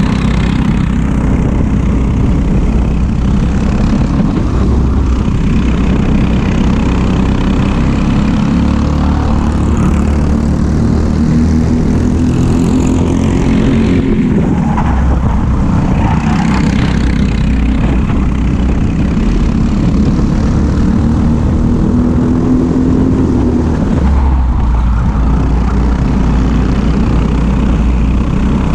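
Briggs & Stratton LO206 single-cylinder four-stroke kart engines running at racing speed, close together, with the pitch rising and falling as the karts speed up and slow through the corners.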